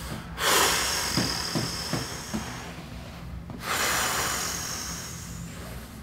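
A man breathing deeply: two long, airy breaths of about three seconds each, the second following a short pause, each fading out.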